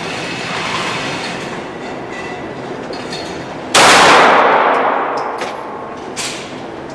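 A loud 9mm pistol shot from a Beretta 92FS about four seconds in, with a long echoing decay, then a second, fainter shot near the end.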